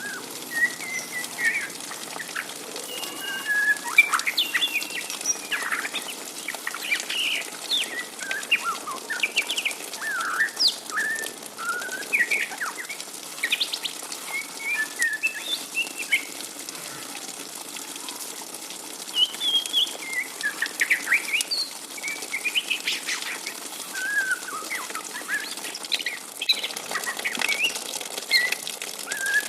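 Young white-rumped shama twittering ('ngriwik'): short rising and falling chirps in quick clusters, with a lull of a few seconds about halfway.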